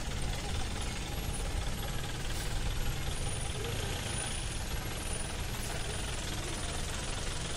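Mahindra Commander jeep's engine running steadily as the jeep crawls in two-wheel drive over a rock slab, heard as a steady low rumble.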